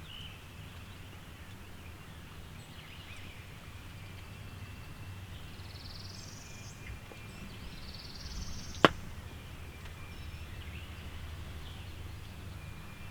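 Songbirds singing in the background, with two rising trills a little past the middle, and one sharp, sudden click about nine seconds in.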